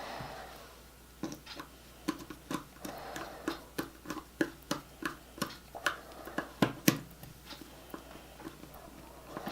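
A run of sharp clicks and taps, about two to three a second, with a louder pair of knocks about two-thirds of the way through: hands working with small tools and parts.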